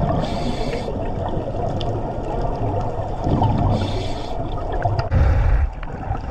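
Underwater sound of scuba divers breathing out through regulators: three bursts of bubbling, gurgling exhaust over a steady low rumble.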